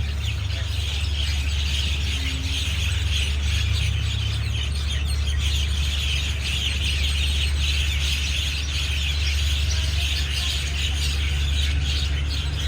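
A large flock of birds chattering and calling together at dusk, a dense, continuous twittering with no pauses, over a steady low hum.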